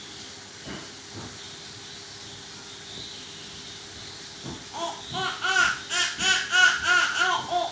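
Toddler laughing: after a faint steady hiss, about five seconds in, a string of high-pitched giggles comes at about four a second and carries on to the end.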